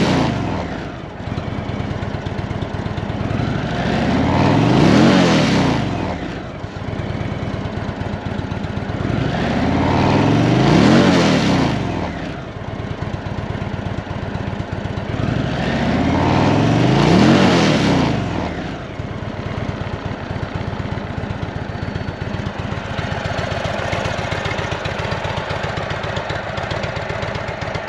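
2022 Indian Chieftain Limited's 116 cubic inch V-twin engine idling while the throttle is blipped. It drops back from a rev at the start, then revs up and down three times about six seconds apart, and settles to a steady idle for the last several seconds.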